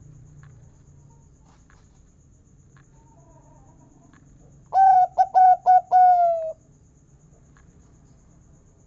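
Local zebra dove (perkutut) cooing one song phrase about halfway through: four short quick notes, then a longer, slightly falling closing note. A few faint clicks come before it.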